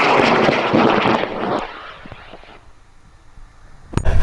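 High-power rocket motor roaring as the rocket lifts off the pad, a loud rushing roar that fades away about two seconds in as the rocket climbs out of earshot. A sharp click near the end.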